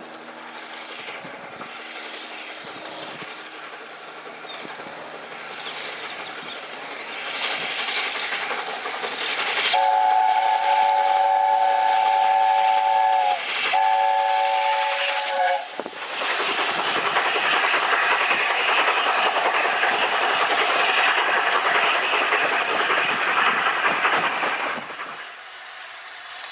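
Steam locomotive approaching and sounding its whistle, a long blast and then a shorter one after a brief break, followed by the loud rush of the engine and train passing close below over the rails. The noise cuts off sharply near the end.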